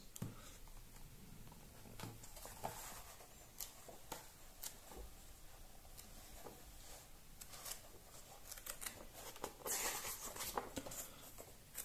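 Faint rustling and light ticks of paper pages of a comic album being turned by hand, with a louder flutter of pages being fanned through about ten seconds in.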